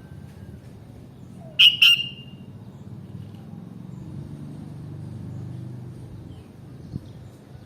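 Sooty-headed bulbul (kutilang) giving two short, loud, sharp call notes in quick succession about a second and a half in, over a steady low background hum.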